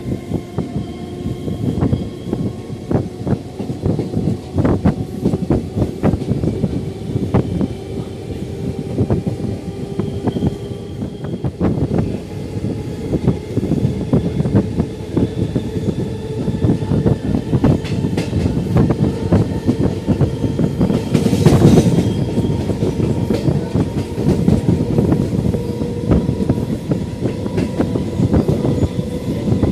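Diesel-electric multiple unit (DEMU) train running, heard from an open carriage window: the wheels clatter over rail joints and points, over a steady drone that rises slowly in pitch as the train picks up speed. About twenty-one seconds in there is a louder rush of noise lasting about a second.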